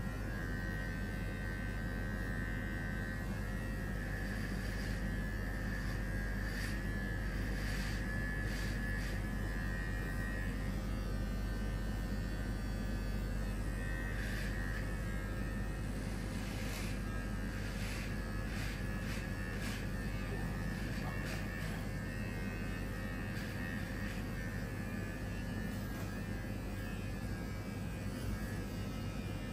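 Electric hair clippers buzzing steadily, with scattered short clicks.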